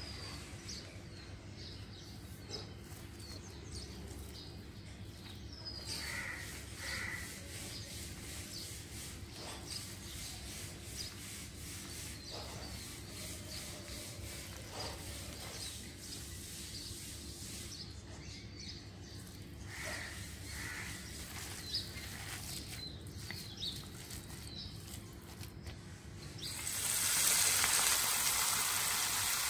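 Faint rubbing of a hand mixing cauliflower pakora batter in a bowl, with birds chirping in the background. Near the end, a much louder sizzle starts as cauliflower pakoras fry in hot oil.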